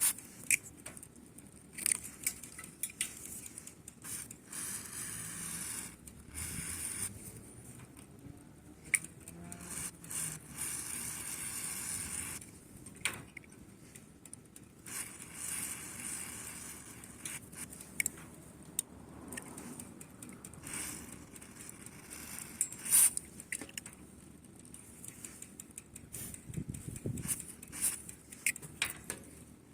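Aerosol lubricant spray hissing in several bursts of one to three seconds, with clicks and light metallic clatter in between, as it is sprayed onto a bicycle's squeaking parts (chain, pedals, wheel axle nuts).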